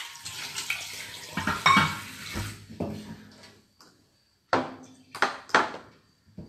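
Water running from a handheld spray head into a metal wash basin, with a couple of knocks, dying away after about three seconds. Then, after a brief pause, three sharp clinks or knocks of hard objects against the basin or counter, within about a second.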